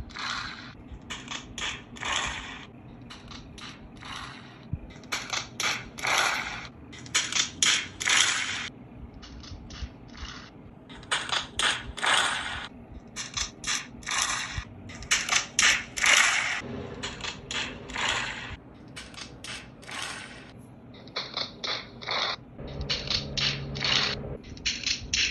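The facepalm meme clip's soundtrack played back through a succession of small phone and tablet speakers: clusters of short, sharp noisy bursts, several a second, with the same pattern returning every few seconds as each device plays it. Near the end, on a Nokia feature phone, the sound turns thinner and buzzier.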